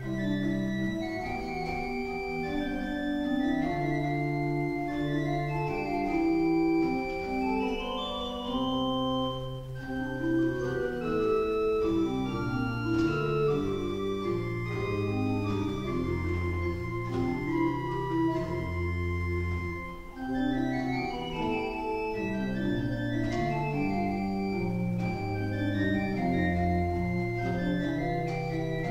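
Simon Pierce pipe organ playing in several voices: held bass notes moving step by step under runs of quicker notes that climb through the treble.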